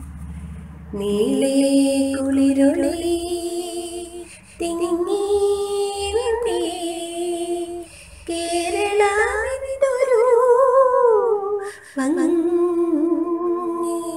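A woman singing a Malayalam children's poem to a simple, slow melody, in four sung phrases with short breaths between them.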